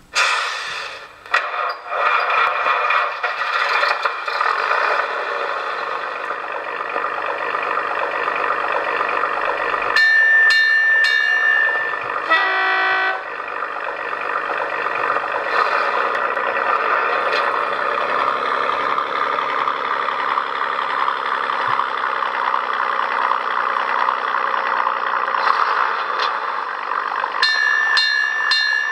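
On30 scale model Galloping Goose railcar's sound system playing a steady running-engine sound. Its horn sounds for about two seconds about ten seconds in, followed by a brief burst of stepped tones. The horn sounds again near the end.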